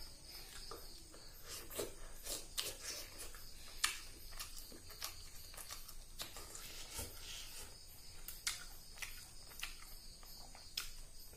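Close-up eating sounds: irregular wet smacks and clicks of chewing a mouthful of fish curry and rice eaten by hand.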